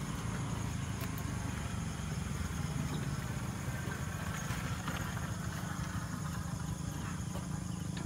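Steady high chirring of night insects over a continuous low hum, with no engine running.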